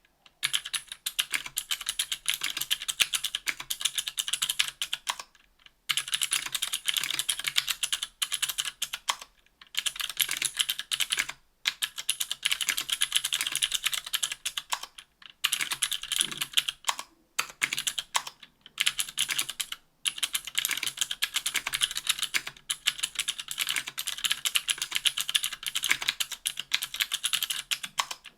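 Fast typing on a KBDfans Tofu 60% aluminum keyboard with an aluminum plate, stock Cherry MX Blue clicky switches (50 g) and GMK keycaps: a continuous stream of sharp clicks, broken by several brief pauses.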